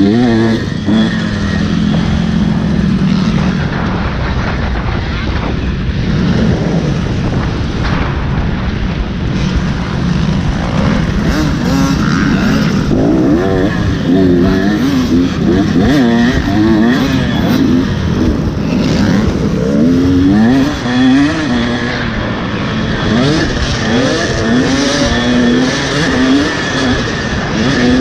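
Motocross dirt bike engine revving hard and easing off over and over, its pitch climbing and dropping through the gears as it is ridden around the track.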